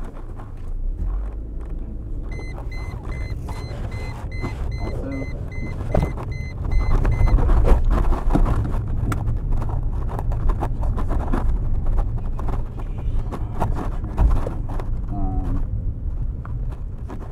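A Chrysler Crossfire's dashboard warning chime beeps rapidly, about two beeps a second, for about five seconds and then stops as the driver buckles his seat belt. Under it the car's V6 engine and tyre noise, heard from inside the cabin, grow louder from about six seconds in as the car pulls away.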